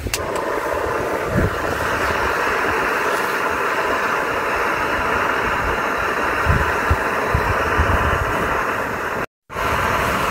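Fire Maple gas canister stove lit with a click and burning at full flame, a loud steady hiss as it heats a pot of water towards the boil. The sound breaks off for a moment near the end.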